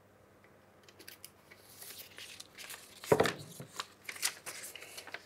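Folded paper slip drawn from a glass beer mug and unfolded, rustling and crinkling, with one short, louder thump about three seconds in.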